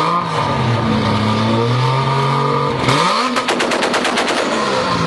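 Toyota Supra engine revving up and falling back. About three seconds in, a quick rev is followed by a rapid string of exhaust pops and crackles, about ten a second for roughly a second: backfires as the exhaust spits fire.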